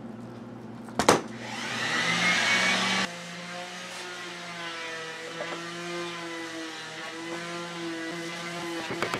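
A sharp click about a second in, then a loud hiss lasting about two seconds that cuts off suddenly, typical of a gas torch being lit. After it comes a quieter steady sound with held, slightly wavering tones.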